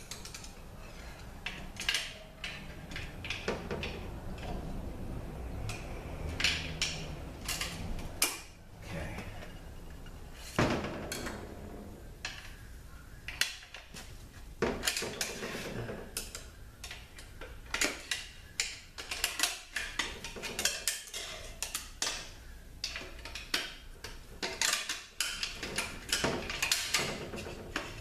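Steel tools clicking, clinking and scraping against a heavy snap ring and the transmission case as the ring is pried out of a Ford 4F50N automatic transaxle case. Irregular sharp metal clicks, coming thicker in the second half.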